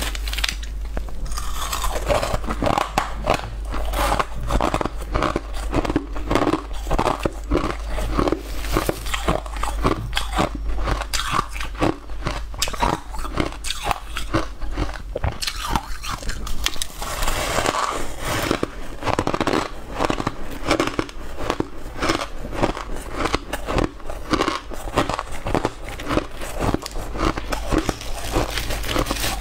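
Crushed frozen ice being bitten and chewed close to the microphone: a dense, irregular run of crisp crunches that goes on without a break.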